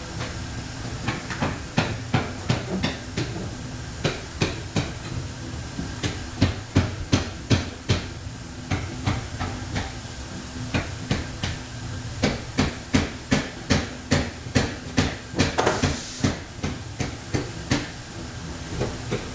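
A hammer striking metal over and over, knocking dynamo parts loose, at about two to three blows a second in an uneven rhythm. A steady low hum runs underneath, and there is a brief hiss about three-quarters of the way through.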